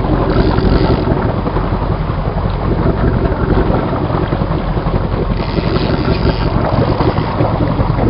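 Steady wind rumble on the microphone over the drone of a fishing boat moving under power on choppy water.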